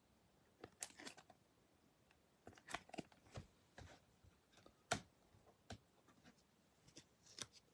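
Near silence broken by faint, scattered clicks and light rustles from hands handling a trading card, with one sharper click about five seconds in.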